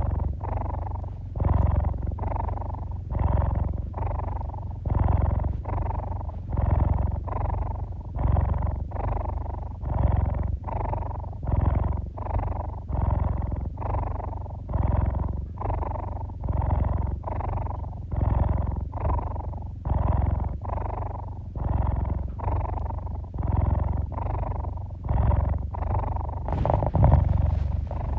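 Domestic tabby cat purring close to the microphone, a steady rhythmic purr that swells and dips with each breath in and out. About a second and a half before the end, a brief loud rustling noise.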